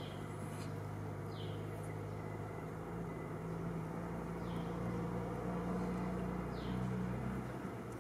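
Steady low hum of a running engine, shifting a little in pitch, with short high chirps that fall in pitch every one to two seconds.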